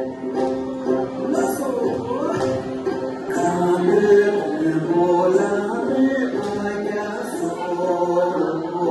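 A Tibetan gorshey circle-dance song: a group singing held, melodic lines over music, with light high-pitched percussion ticks.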